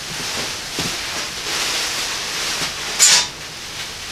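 Thin plastic sheeting rustling and crinkling as it is pulled off and bunched up, with one sharp, louder crackle about three seconds in.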